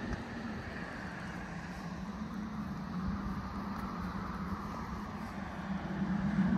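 A distant engine drones steadily with a low, even hum and a fainter higher tone that drifts slowly.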